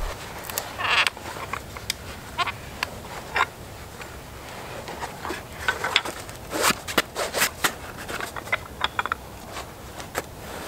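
Knife whittling a wooden stick: irregular scraping strokes and sharp clicks as the blade shaves off wood, coming thickest a little past the middle.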